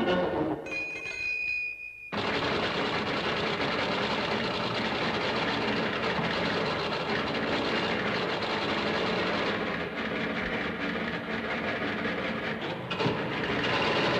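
A steady high tone for about a second and a half, then, starting suddenly about two seconds in, a dense and continuous mechanical rattling noise.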